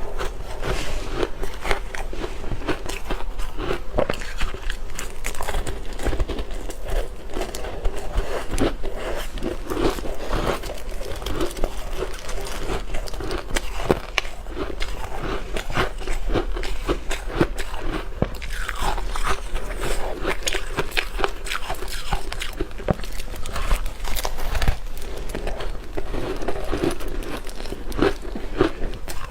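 Ice being bitten and chewed close to the microphone: a continuous run of irregular sharp crunches and cracks.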